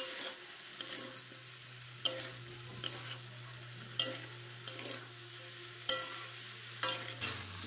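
Metal spatula stirring and scraping vegetables in a metal kadhai, striking the pan about once a second with a brief metallic ring, over a soft steady sizzle of the masala frying.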